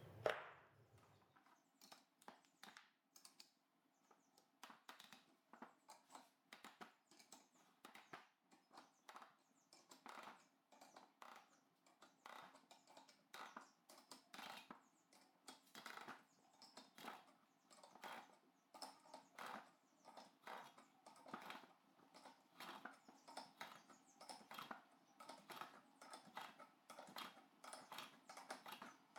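Faint, repeated clicking, about one to two clicks a second, as a three-jaw bearing puller's forcing screw is worked on an electric motor's rotor shaft to pull the nose bearing. A single sharp knock comes right at the start.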